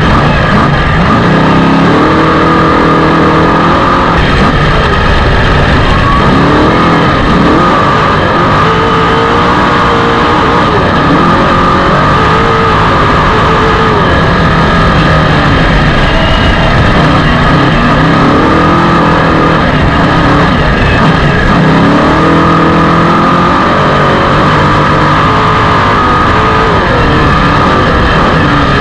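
Off-road race vehicle's engine running hard, revving up and down in repeated surges over a constant loud rush of noise with a steady high whine.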